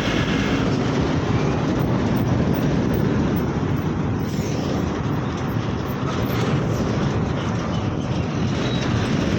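Steady rumble of vehicle and road noise, without a break.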